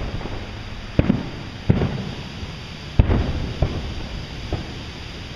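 Aerial fireworks shells bursting: three sharp reports, about a second in, near two seconds and three seconds in, then two fainter pops. Each report trails off in a low rumble.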